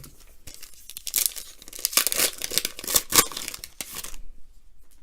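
A Donruss Optic basketball card pack wrapper being torn open and crinkled. It gives a dense crackling rustle for about three seconds, starting about a second in, then stops abruptly.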